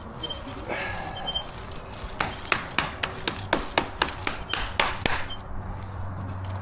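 A tool striking hard, a dozen sharp knocks in quick succession over about three seconds, during work on freshly stamped concrete. A low steady hum comes in near the end.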